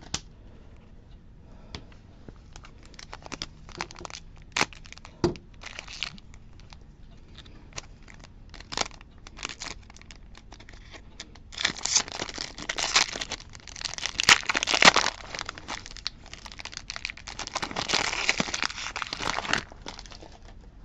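Foil wrapper of a Pokémon Fusion Strike booster pack crinkled and torn open by hand. Scattered crackles come first; from just past halfway it turns to dense, loud crinkling and tearing. The pack is stubborn and takes a long struggle to open.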